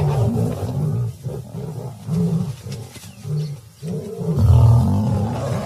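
Lions snarling in an aggressive clash between a lioness and an intruding male lion: a run of short, low growling calls in quick bouts, loudest about four and a half seconds in.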